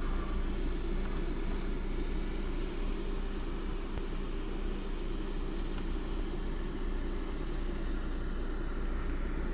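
Niva 4x4's engine running steadily at low, even speed as the car drives slowly along a rough forest track.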